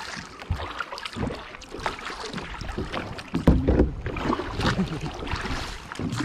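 Kayak paddle strokes splashing in river water, with irregular splashes and water sloshing against the kayak.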